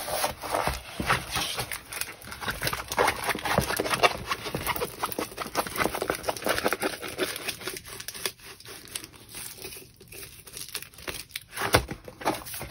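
Crinkling plastic packaging being handled and pulled open around a rolled diamond-painting canvas: a dense run of rapid crackles that thins out in the last few seconds.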